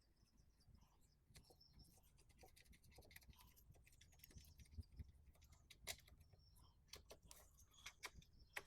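Near silence with faint, scattered clicks and light scratching, a few sharper clicks in the second half.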